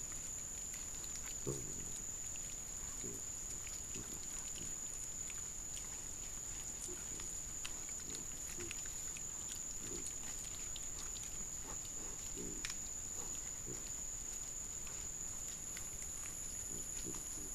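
Wild boar (sow and piglets) foraging and grunting: short low grunts scattered irregularly, the loudest about a second and a half in.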